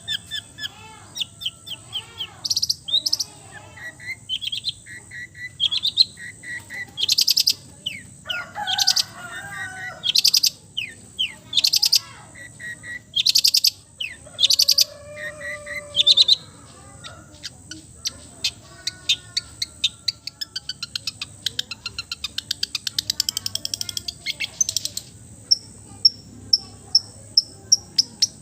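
Long-tailed shrike (cendet) singing a varied mimicking song: quick chirps, short whistles and loud harsh rasping notes, with a steady high thin tone behind it. Near the end it breaks into a fast run of sharp repeated notes, about four a second.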